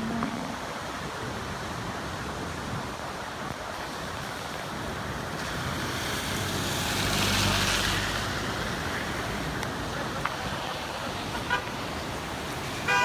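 Steady road traffic noise. About seven seconds in, a vehicle passes, with a swell of engine and tyre hiss. A short horn toot sounds near the end.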